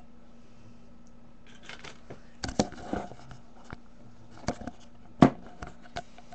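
Handling noise close to the microphone: scattered clicks, knocks and short rustles, the loudest a sharp knock about five seconds in, over a faint steady hum.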